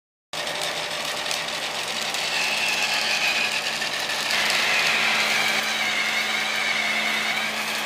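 Rokenbok toy monorail running on its track: a small electric motor and plastic gears whining steadily, the whine stepping down in pitch about four seconds in and wavering after.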